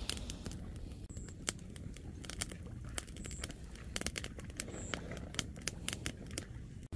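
Small open fire of dry straw and twigs crackling, with many irregular sharp pops.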